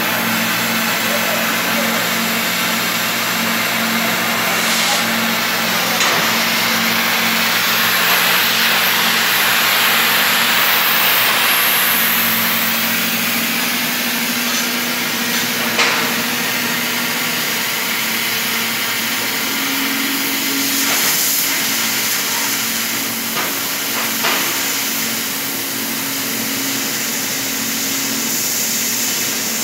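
Oxy-acetylene cutting torch hissing steadily as its flame heats and cuts through steel sheet, with a few sharp clicks and a steady low hum underneath.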